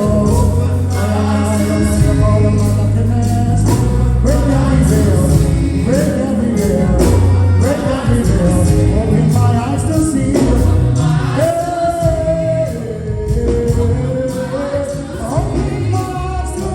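Live gospel worship music: a band with a steady bass line and drums under a singer's sustained, sliding vocal lines.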